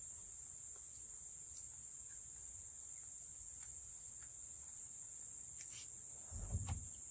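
Steady high-pitched chorus of insects. A short low thump about six and a half seconds in.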